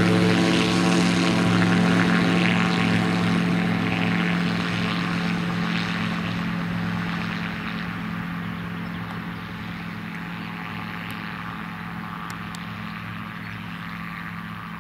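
AutoGyro MTO Sport gyroplane's engine and pusher propeller running at takeoff power with a steady low drone, fading steadily as the aircraft moves away.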